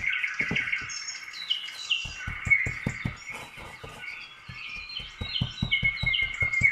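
Small birds chirping over and over in short falling tweets, with runs of quick soft thumps from hands patting and pressing bread dough.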